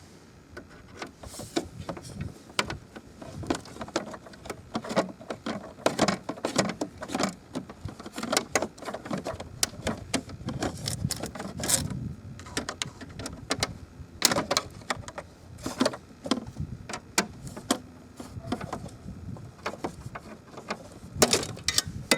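Hand screwdriver backing out small screws from a plastic glove box latch assembly, with many irregular clicks, taps and scrapes of hard plastic parts being worked loose and handled.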